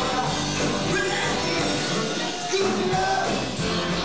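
Live rock band playing: electric guitars, bass, drums and keyboards, with a sung vocal line.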